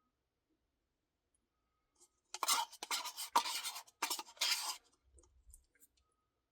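A spoon scraping and clicking in a Blizzard cup, in two scratchy bursts starting about two seconds in, the second shorter.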